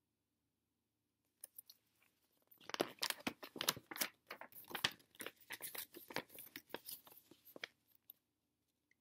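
Glossy paper catalog being handled and its pages turned: a dense run of rustling and crinkling paper that starts about a second and a half in and stops about a second before the end.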